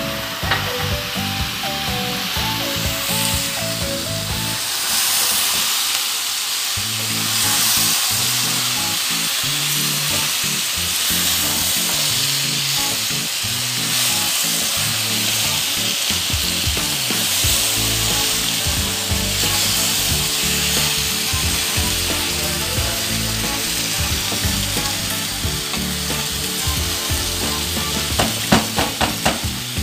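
Okra, onion and tomato sizzling steadily in oil in a metal pot over a gas flame, with background music underneath. About 28 seconds in, a wooden spoon clatters and scrapes against the pot as the vegetables are stirred.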